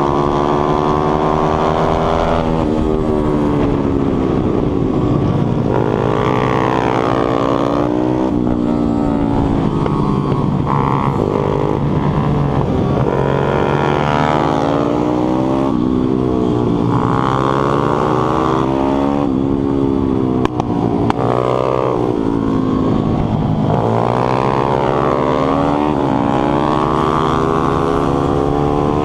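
A 140 cc pit bike's single-cylinder four-stroke engine, heard from on board, revving up hard and dropping away again and again as the rider accelerates, shifts up and backs off for corners. A brief knock is heard about two-thirds of the way in.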